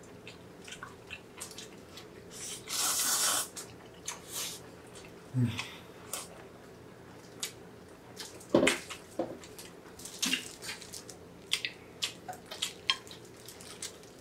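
Eating sounds of bibim-myeon (spicy cold noodles) and pork belly: wet chewing and lip smacks, with a noisy noodle slurp about three seconds in and a few louder clicks.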